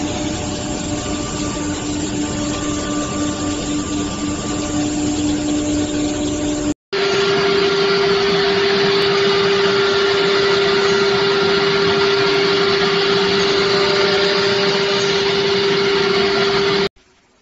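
Wood CNC router spindles running while cutting board panels: a steady high whine over a rushing noise. About seven seconds in, the sound cuts abruptly to another machine with a higher, louder whine, which stops abruptly near the end.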